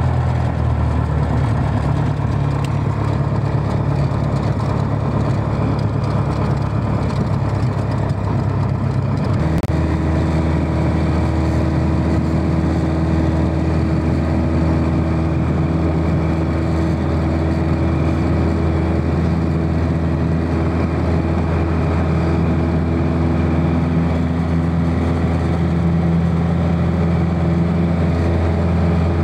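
Piper Warrior's four-cylinder Lycoming engine and propeller heard from inside the cockpit, running steadily at low power, then stepping up to a higher, steady pitch about ten seconds in as power comes up for the takeoff roll.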